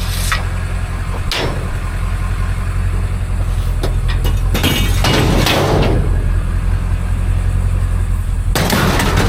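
Motor vehicle engine running with a steady low drone, with several brief whooshing swells of noise over it, about a second in, in the middle and near the end.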